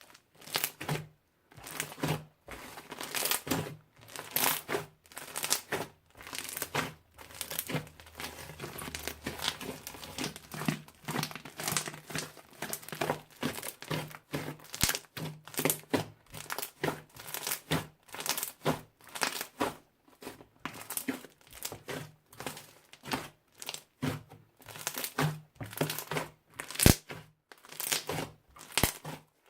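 Crunchy slime being squeezed and pressed by hand, crackling and popping in repeated bursts about once or twice a second.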